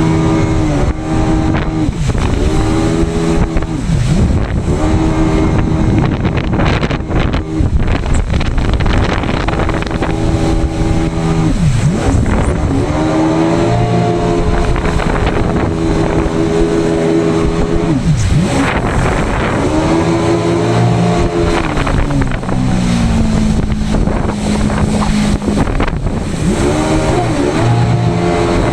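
Yamaha jet ski engine running hard, its pitch dropping sharply and climbing back again several times as the throttle is let off and opened up, over a steady rush of water and wind.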